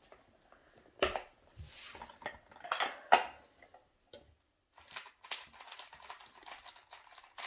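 Hard plastic clicks and rustling as a GAN 356M speedcube is handled and taken from its packaging, with a sharp click about three seconds in and a fast run of small plastic clacks in the second half.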